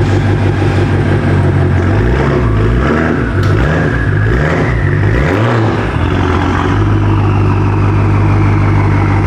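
A motor or engine running loudly with a steady pitched hum; its pitch wavers up and down for a few seconds before settling.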